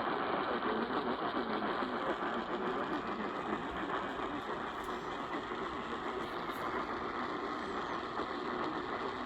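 A steady rushing noise with no clear tones or pitch, even throughout.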